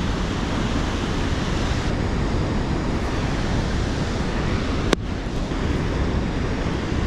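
Steady rush of fast-flowing river water, with wind on the microphone; one sharp click about five seconds in.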